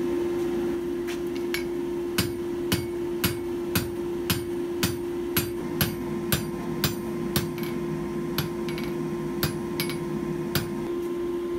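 Hand hammer striking a hot stainless steel bar on an anvil, drawing out a skewer-point taper: steady blows about two a second, starting about a second in.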